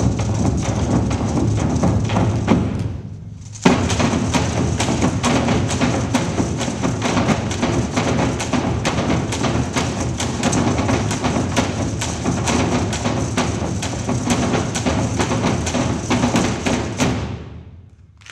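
A percussion ensemble playing wine barrels and casks as drums with sticks, a fast, dense run of strikes. The playing drops away for about half a second around three seconds in, comes back together on one loud hit, and dies away near the end.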